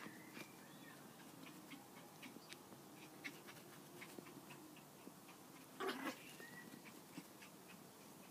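A cat and a miniature Yorkshire Terrier play-fighting on a lawn: mostly quiet with a few faint ticks, then one short animal cry in two quick pulses about six seconds in.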